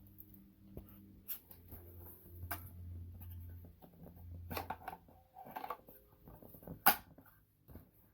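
Scattered light clicks and knocks over a faint low hum that stops about five seconds in, with one sharp click about seven seconds in.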